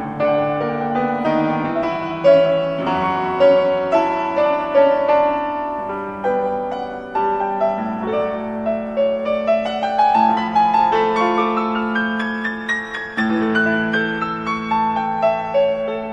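Concert grand piano playing a classical concerto passage, with a long rising run of notes from about nine to thirteen seconds in.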